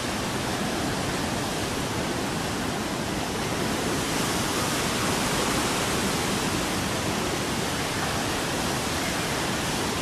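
Typhoon Jelawat's wind and heavy rain making a steady, unbroken rushing hiss.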